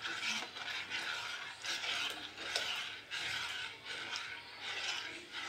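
Metal spoon stirring milk and flan powder in a steel saucepan, scraping against the pan in an uneven rhythm, with a few light clinks.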